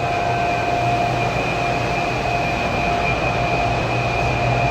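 Machinery running steadily: an even mechanical drone with a low hum and a steady high whine over it.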